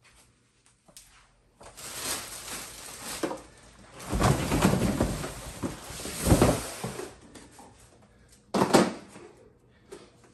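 Cardboard box and plastic wrapping rustling and scraping as a lawn mower is lifted out of its box, with two loud thumps about four and six and a half seconds in. A short knock near the end as the mower is set down.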